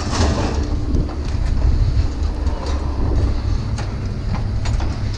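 A steady low rumble with scattered light clicks and knocks on top.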